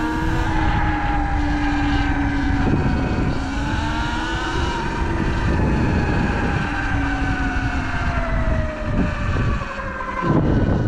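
Sur-Ron Light Bee X electric dirt bike's motor whining as it is ridden, its pitch rising and falling with speed and sinking slowly toward the end, over a low rumble of wind on the microphone.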